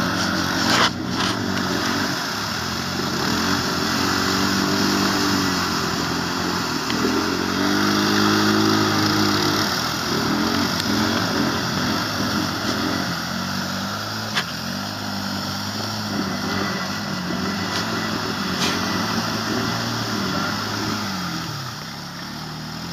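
Polaris Sportsman ATV engine revving hard and unevenly while the quad is stuck deep in mud, the revs rising and falling over and over as the rider tries to drive it out. A sharp knock about a second in.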